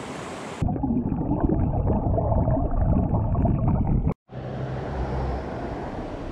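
Rushing river water heard first in open air, then from about half a second in through a camera microphone under the surface: a loud muffled rumbling and gurgling with the highs gone. It cuts off suddenly about four seconds in, and the open-air rush of the shallow river returns.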